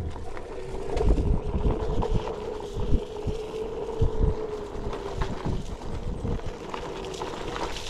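Onewheel electric board's hub motor whining steadily as it rolls along a dirt trail. The pitch drops a little past the middle and comes back up near the end, with wind buffeting the microphone in low thumps.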